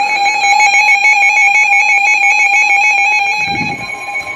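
Electronic emergency-alert tones: a loud, steady tone with a higher tone held above it, rapidly pulsing at an even rate. It fades near the end as a new, single steady tone begins.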